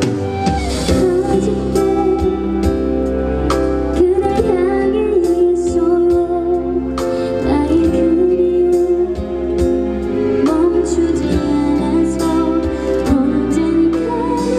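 A woman singing a slow ballad live into a microphone, over band or backing-track accompaniment with a steady beat, heard through the concert PA.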